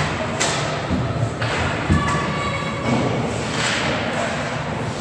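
Ice hockey play echoing in a rink: thuds of sticks and puck against the boards and ice, with scraping noise, the sharpest thud about two seconds in.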